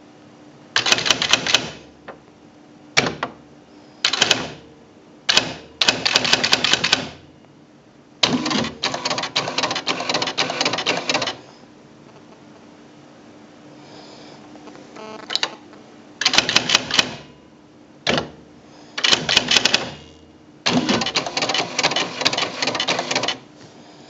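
Smith Corona PWP 3600 electronic word-processor typewriter printing: rapid runs of daisy-wheel strikes, each lasting from half a second to about three seconds, with short pauses between lines.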